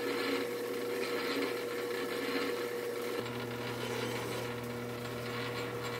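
Metal lathe running with a steady hum, taking a light skim cut on a 12L14 steel shaft. About three seconds in, the hum changes and a flat file rubs against the spinning shaft to deburr it.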